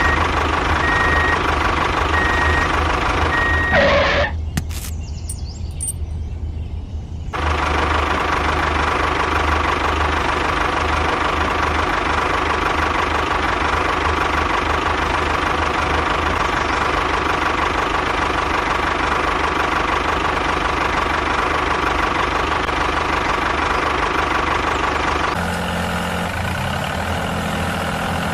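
Small motor running steadily with a constant whine over a low rumble. The sound dips for about three seconds around four seconds in and changes character near the end.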